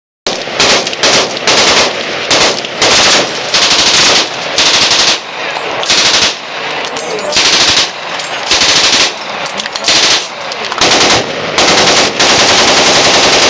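Machine gun firing on full automatic in a string of short bursts, then a longer burst near the end.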